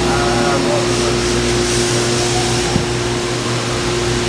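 Haas VF-2 CNC vertical milling machine running a program, a steady machine hum with one constant tone over an even hiss, and a single sharp click about three seconds in.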